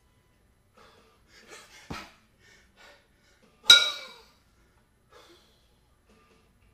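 Hard breathing during a jerk with two 22 kg kettlebells: a softer knock about two seconds in, then a loud metal clank with a short ringing tone as the bells drop back into the rack position at the chest and knock together.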